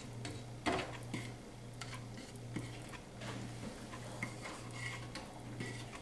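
A wooden spoon stirring boiling sugar and corn syrup in a stainless steel pot, with irregular clicks and knocks of the spoon against the pot, the loudest about a second in. A low hum cuts in and out underneath.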